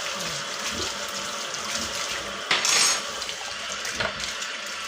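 Kitchen tap running steadily into a sink, with a louder splash about two and a half seconds in and a short knock of dishes around four seconds.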